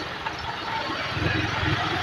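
Motorcycle engine running at low speed as the bike rolls slowly in street traffic, with a low rumble that swells slightly about halfway through.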